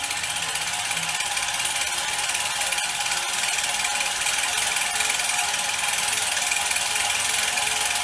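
Film projector running: a fast, even mechanical clatter of the film being pulled through.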